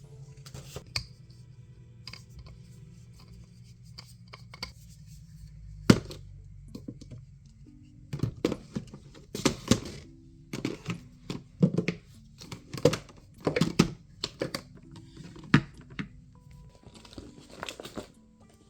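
Background music playing over rustling, crinkling and light knocks of things being handled. The handling is busiest in the second half, with one sharp knock about six seconds in.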